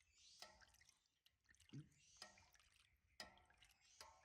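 Faint splashing and dripping of bathwater around a baby monkey, with a few short pitched vocal sounds in between.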